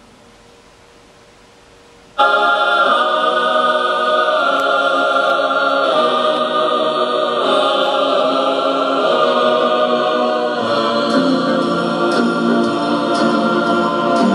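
A short stretch of faint hiss, then about two seconds in background music starts suddenly: a choir singing long held chords.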